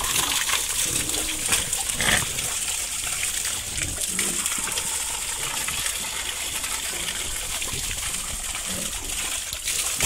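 Whey gushing from a hose and splashing into a pig trough, with a few short grunts from the pigs crowding it to drink.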